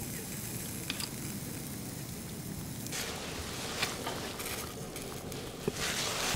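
Fire crackling and hissing in a small metal box stove under a wire grill grate, with a few sharp pops.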